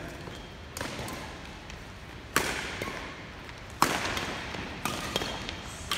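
Badminton racquets hitting a shuttlecock in a rally: three sharp smacks about a second and a half apart, then two lighter taps near the end, each ringing on in the echo of a large gym hall.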